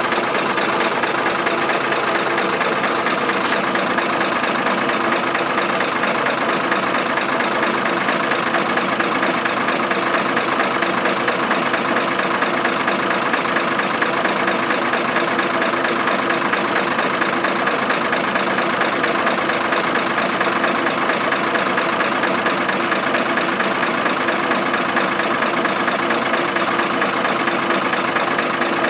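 An engine idling steadily, with an even hum that does not change. A couple of faint metallic clicks come about three seconds in.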